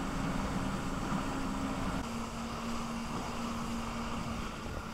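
Jet ski engine running at speed, a steady drone mixed with wind and rushing water; its pitch steps slightly lower about two seconds in.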